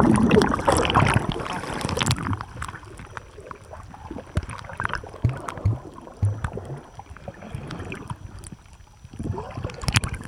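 Water heard through an underwater camera housing: a loud rush of splashing water for the first couple of seconds, then muffled underwater sound with scattered clicks and low bumps. Another short burst of splashing comes near the end.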